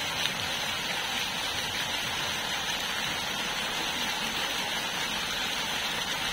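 Rows of fountain jets splashing into shallow pools: a steady rushing hiss of falling water.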